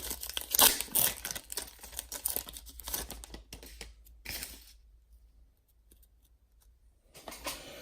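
Wrapper of a 2019 Panini Diamond Kings baseball card pack being torn open and crinkled, a crackly tearing rustle for about four and a half seconds. A short rustle comes again near the end.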